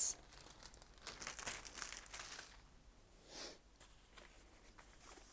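Rolled diamond painting canvas and its clear plastic wrap crinkling and rustling as they are handled and unrolled, with one loud crinkle at the start, then faint scattered crackles and a soft swish about three and a half seconds in.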